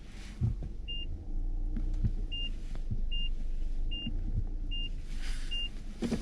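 Low rumble inside a moving Mazda CX-9's cabin, with a couple of dull thumps, and a short high electronic beep from the car repeating six times, spaced about 0.8 s apart after the first.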